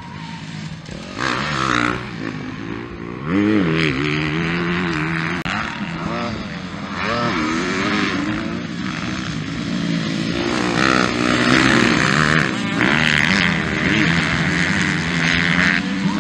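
Motocross bikes racing, their engines revving up and down repeatedly as the riders shift and throttle over the track's jumps.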